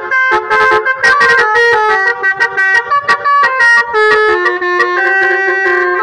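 Basuri telolet horn on a Toyota Veloz playing a tune: loud chords of air-horn notes that step quickly from pitch to pitch, with brief breaks between phrases, cutting off near the end.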